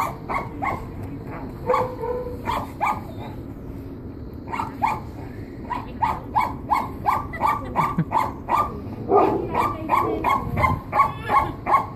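Dog barking over and over in quick, even series, about three barks a second, with a short pause a few seconds in.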